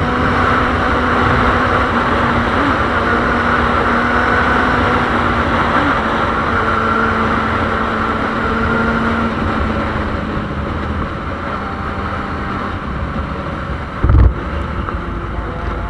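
Yamaha Fazer 600 motorcycle engine running at a steady cruise, with wind rushing over the microphone; it gets a little quieter in the second half. A short low thump comes near the end.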